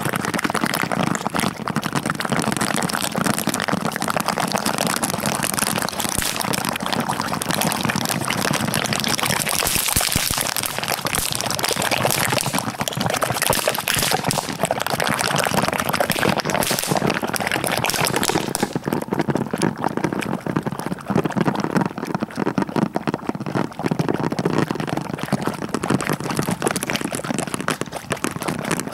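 Strings of firecrackers going off inside layers of jello in an aquarium: a dense, continuous crackle of rapid small bangs. The crackle turns duller about two-thirds of the way through.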